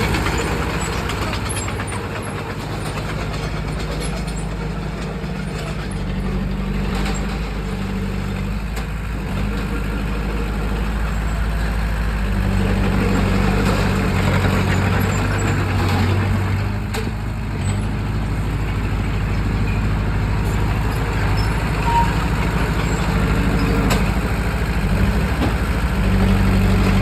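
Bulldozer's diesel engine running under load while pushing soil. Its note rises and falls every few seconds as the load changes, with a few short knocks.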